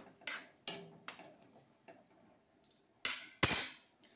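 Metal spoon scraping and clinking against an aluminium kadhai while stirring peas in a thick green paste, three short strokes in the first second. About three seconds in come two much louder metal clanks in quick succession.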